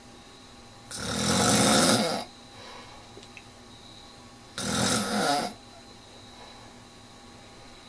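A sleeping person snoring: two loud snores, the first starting about a second in and lasting over a second, the second a shorter one about halfway through, with quiet breathing pauses between.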